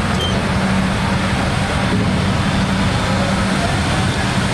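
A steady, loud engine or motor drone with a low, even hum.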